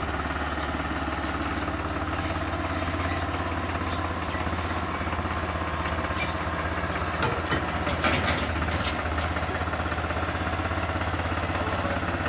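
New Holland T480S tractor's diesel engine idling steadily while the tractor rolls down steel loading ramps off a truck bed, with a few sharp metallic clanks from the ramps about seven to nine seconds in.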